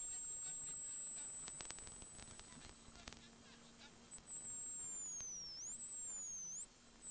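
Peugeot 106 XSI rally car at speed, heard from inside the cabin. A high-pitched whine holds steady, then dips and sweeps back up twice in the last two seconds, over scattered sharp clicks and knocks and a faint low hum.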